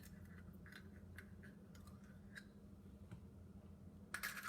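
Near silence: faint, scattered light clicks of kitchen handling over a low steady hum, with a short louder scrape near the end.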